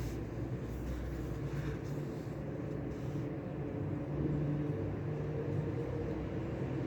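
Steady low rumbling background ambience, even in level throughout, with a few faint light ticks.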